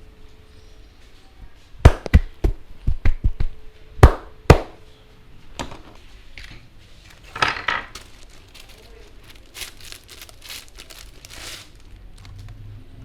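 A barber's hands striking a head in an Indian head massage: a quick run of about nine hard slaps and chops, then lighter, faster rubbing strokes near the end.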